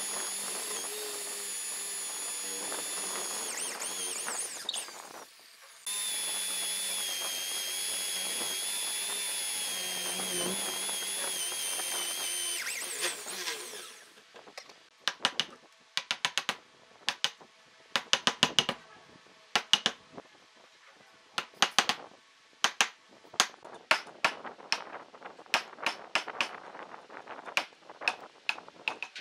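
A small electric power tool runs with a high, slightly wavering whine, stops briefly about five seconds in, then runs again until about fourteen seconds in. After that come many irregular sharp clicks and taps of tool work on wood.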